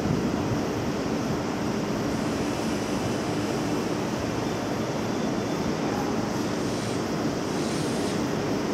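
Seibu 301 series electric train pulling slowly out of the station, a steady noise of its wheels and traction motors heard from above, with no sudden sounds.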